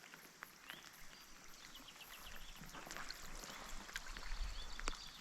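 Canoe being paddled off: faint splashing water with a few sharp knocks, and small birds chirping.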